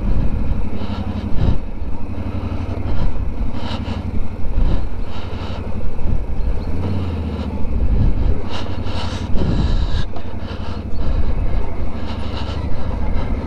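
ATV engine running under way, its note shifting as the throttle changes, with scattered knocks and rattles.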